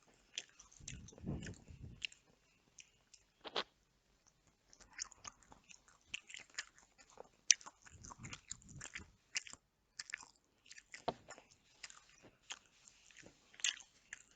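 A person chewing and biting chicken close to the microphone, with many sharp, irregular wet mouth clicks.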